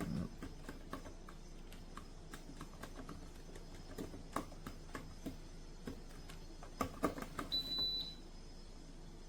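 Irregular plastic clicks and knocks from the parts of a table fan being handled and forced, which the reviewer is struggling with, with a short high beep about three quarters of the way in.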